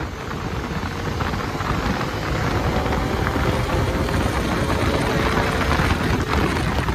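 Wind rushing over the microphone with the Bajaj Dominar 250's single-cylinder engine underneath while riding, getting gradually louder.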